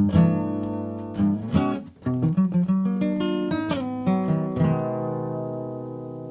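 Acoustic guitar played solo: a quick run of plucked notes and chords, ending about three-quarters of the way through on a final chord that is left to ring and slowly fade.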